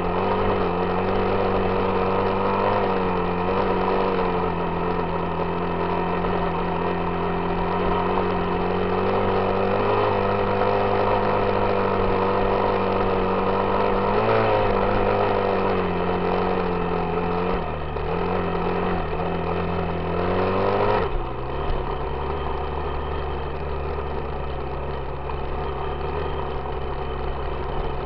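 Yamaha YZ dirt bike engine running under steady part throttle, its pitch wavering a little with the throttle. About three-quarters of the way through the pitch drops suddenly, and the engine runs on at the lower speed.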